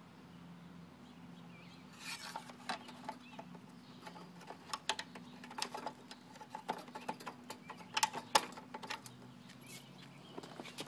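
A run of sharp little clicks and taps from about two seconds in to about nine, loudest near the eighth second, as the dipstick and a plastic fill cap on a pressure washer's Quantum Gold 6.0 engine are handled. The engine is not running; underneath is only a faint steady hum.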